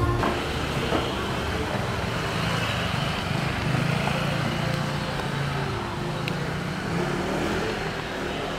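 A motor vehicle's engine running steadily close by, amid street noise.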